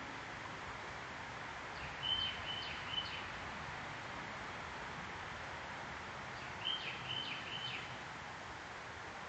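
A bird calling twice, each time a quick series of three short, high whistled notes, about four seconds apart, over a steady outdoor background hiss.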